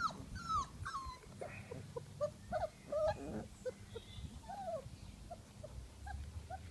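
Black and tan coonhound puppies whimpering and yipping in many short, high, sliding cries, loudest in the first few seconds and growing fainter.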